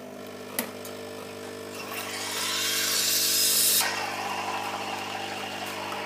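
Nespresso Creatista Pro capsule coffee machine brewing: its pump runs with a steady buzzing hum, with a click about half a second in. A loud hiss builds from about two seconds in and cuts off sharply near four seconds, as the espresso starts flowing into the cup.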